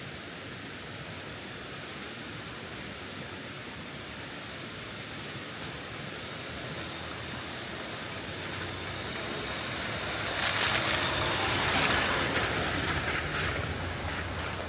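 Jeep Gladiator driving up and past on a wet dirt trail: its engine hum builds as it comes closer, and engine and tyre noise are loudest from about ten to thirteen seconds in as it goes by. A steady hiss lies underneath throughout.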